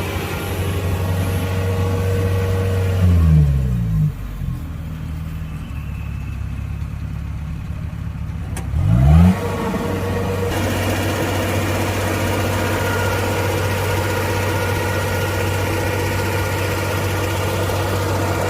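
Kubota tracked combine harvester's diesel engine running, dropping in revs about three seconds in, then revving back up about nine seconds in and running steadily, with more mechanical noise over the engine hum for the rest of the time.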